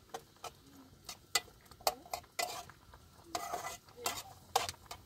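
Utensil stirring and knocking in a cooking pot: irregular sharp clinks about two a second, with a short scraping sound near the middle.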